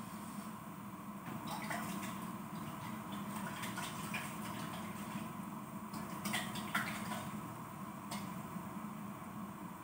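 Glass-lidded pot of chicken and papaya in coconut milk simmering, with small irregular bubbling pops and ticks over a steady low hum.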